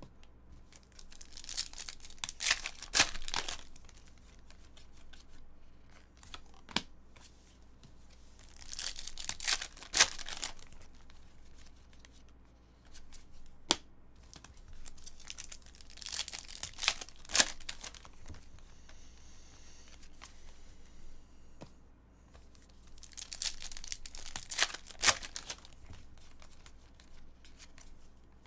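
Foil wrappers of Panini Contenders football card packs being torn open and crinkled, in four bursts several seconds apart, with sharp clicks among them.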